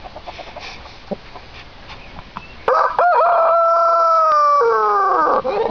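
A rooster crows once, starting about two and a half seconds in: one long call held on a steady pitch that drops away at the end.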